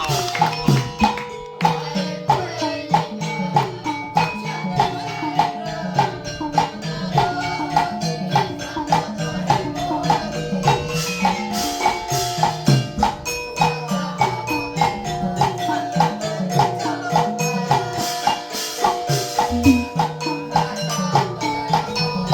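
Traditional Burmese dance music played live by an ensemble: quick runs of struck, xylophone-like mallet notes over drums and small jingling percussion, keeping a steady beat.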